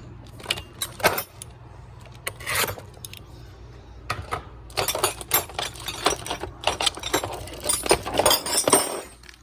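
Metal hand tools, new wrenches, clinking and jangling against each other as they are handled: scattered clinks at first, then a dense run of rattling clinks from about halfway through.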